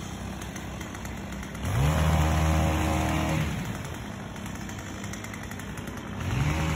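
A petrol engine revs up and holds at high speed, drops back to a lower run, then revs up again near the end.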